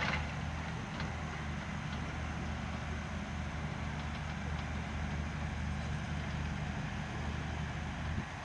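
Pile-driving machine's engine running steadily at idle, with no hammer blows; the hum cuts off abruptly near the end.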